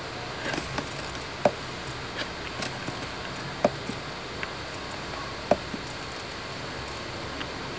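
Computer mouse clicking: a handful of short sharp clicks, three of them clearly louder and about two seconds apart, over a steady background hiss.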